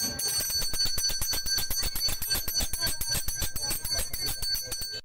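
Street ice cream vendor's hand bell rung rapidly and continuously: a fast run of metallic strikes over a steady ringing tone, the call that the ice cream vendor is passing.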